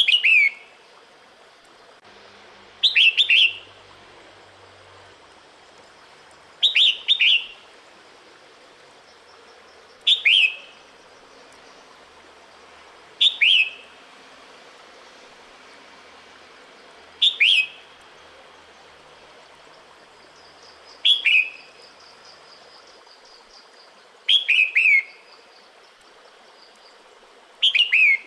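Female red-whiskered bulbul calling: short bursts of two or three quick falling notes, repeated about every three to four seconds. It is the female's call to males in the breeding season.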